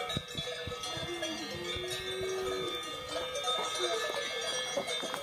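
Bells on grazing cows ringing, many at once: a steady jangle of overlapping tones.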